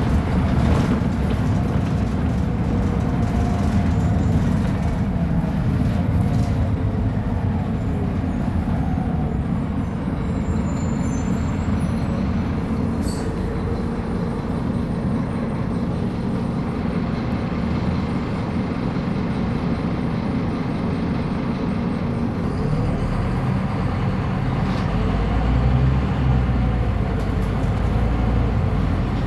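Scania K310UB bus's five-cylinder diesel engine running steadily, a low drone whose pitch drifts slightly up and down, as in a Caio Millennium BRT bus under way.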